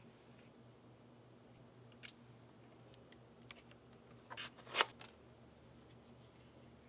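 Faint clicks and taps of small plastic and metal parts being handled as a receiver module is fitted into FPV goggles: single clicks about two and three and a half seconds in, then a short cluster of clicks a little before five seconds in, the loudest of them.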